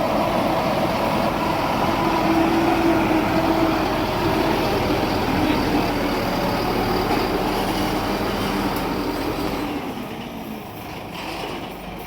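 Ready-mix concrete truck running with a steady drone that eases off and gets quieter about ten seconds in.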